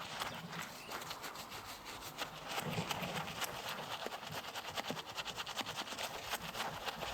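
A brush scrubbing dried mud off an RC car: dense, irregular scratchy strokes and small clicks.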